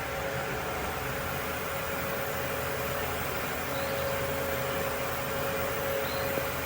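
Steady machine running noise: an even hiss with a faint steady hum under it and no clear knocks.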